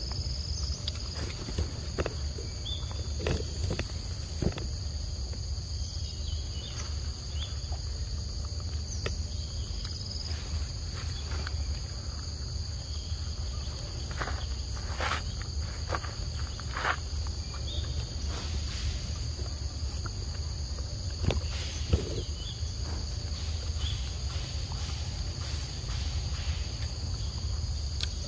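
A steady chorus of insects buzzing at several high pitches, over a low steady rumble. Scattered short clicks and smacks come from a macaque chewing mango close to the microphone.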